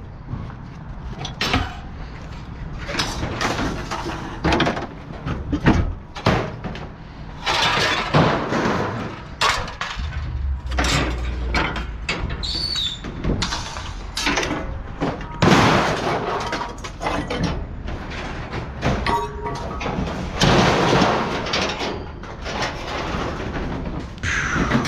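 Scrap metal being unloaded from a truck bed: a string of irregular clanks and bangs, with stretches of scraping as pieces are dragged and tossed onto the pile.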